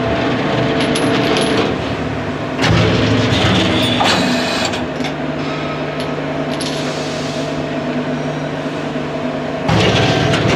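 Cold-forging hydraulic press running: a steady hydraulic hum that steps up and down in level a few times as the press cycles, with a sharp metallic clank about four seconds in and a few light metal clinks near the start.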